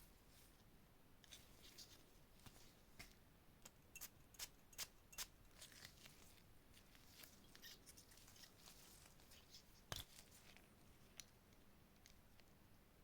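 Faint handling clicks and taps from a glass perfume bottle, with a quick run of four sharp clicks about four seconds in and one louder click near the end, against near silence.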